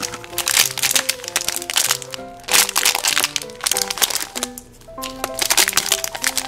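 Clear plastic candy bag of jelly beans crinkling and crackling as it is pulled open and handled by the fingers, over background music with short bouncy notes.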